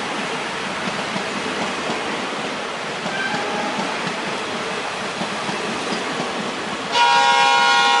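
Railway coaches and vans rolling steadily past with a faint distant horn note about three seconds in. About seven seconds in, a loud, multi-tone diesel locomotive horn starts suddenly and keeps sounding.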